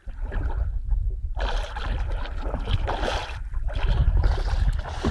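Water gurgling and sloshing at the side of an inflatable boat over a low rumble. The sound fills out and grows louder after about a second and a half.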